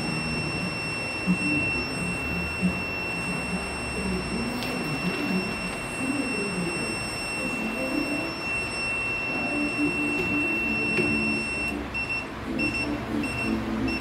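Electronic beeper on the 8-in-1 heat press sounding a steady high tone, which about twelve seconds in turns into rapid on-off beeping, roughly two beeps a second: the press's timer alarm.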